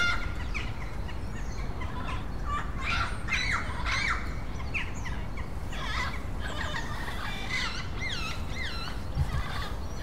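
Yellow-headed amazon parrots squawking again and again, a string of harsh calls that rise and fall in pitch, from birds in an aggressive mood after a fight at the nest hole.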